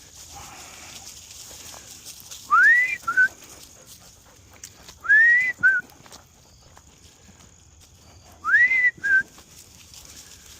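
Someone whistling three times, each a quick rising whistle followed by a short second note, about three seconds apart.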